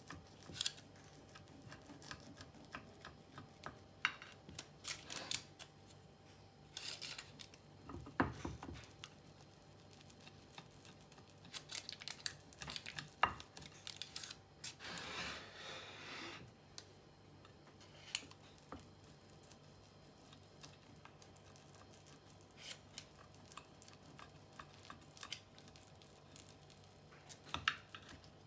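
Small kitchen knife cutting through a tray of baked seed-and-oat granola: faint, scattered crunches, clicks and scrapes as the blade presses down through the bar. One longer scrape comes just past halfway.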